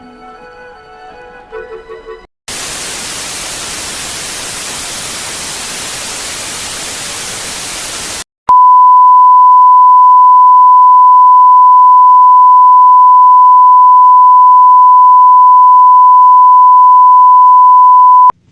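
Opening of a mock Emergency Alert System broadcast. A soft flute-like melody ends about two seconds in, followed by television static hiss for about six seconds, then a very loud single steady alert tone for about ten seconds that cuts off suddenly.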